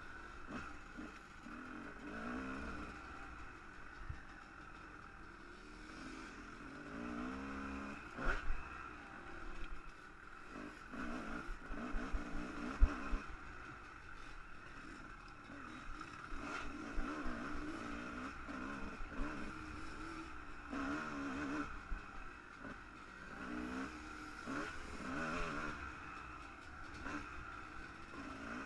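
1998 Kawasaki KX250 two-stroke single-cylinder dirt bike engine running at speed on a rough trail, its revs rising and falling as the throttle opens and closes. Occasional knocks and clatter from the bike over bumps.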